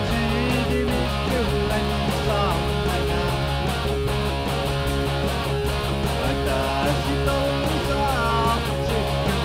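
Electric guitar playing a rock-style song over sustained bass notes, with a higher melody line that bends in pitch several times.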